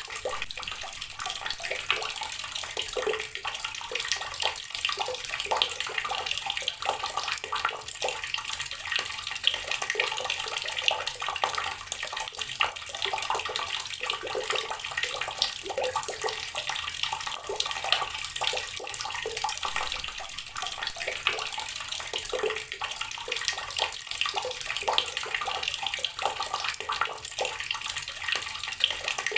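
Water pouring from a tap and splashing onto rocks, a steady stream with constant small splashes.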